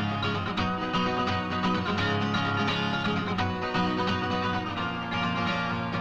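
Music of rapidly plucked strings, a guitar, playing dense runs of notes.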